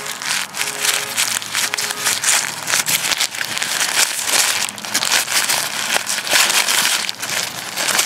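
Plastic packaging crinkling and rustling close to the microphone as a Ziploc bag is opened and a folded fabric pouch is pulled out and handled, with a dense run of irregular crackles and small clicks.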